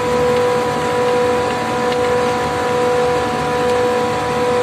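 A 165-ton air-cooled chiller with twin-screw compressors running under load: a steady, loud machine noise with a constant high whine over it.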